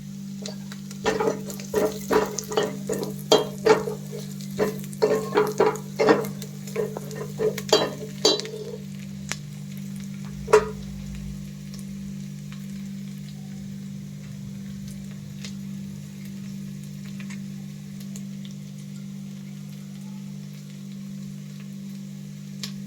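Spatula stirring and striking a metal frying pan in a quick run of strokes for about eight seconds, then once more a couple of seconds later, as onions and green chillies fry in oil with a faint sizzle. A steady low hum runs underneath.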